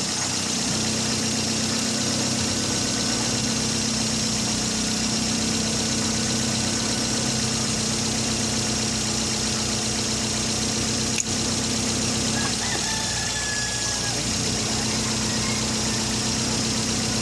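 Toyota Vios petrol engine idling steadily, with one sharp click about eleven seconds in.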